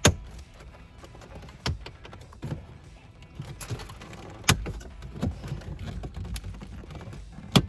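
Plastic dash trim panel around a car radio being pried off, its snap clips popping loose one after another: a string of sharp clicks and pops with handling rustle between them.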